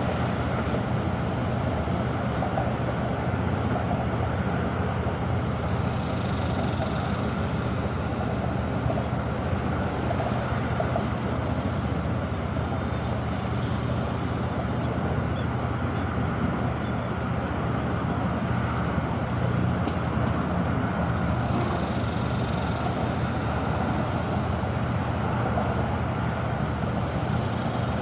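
Steady low rumble of vehicle or engine noise with an even hiss over it, the hiss swelling and fading several times.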